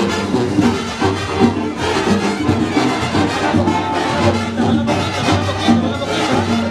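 Marching band playing, with brass carrying the tune.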